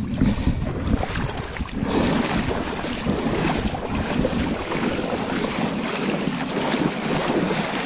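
Shallow river water rushing and splashing around wading anglers' legs, with wind buffeting the microphone as a low, uneven rumble.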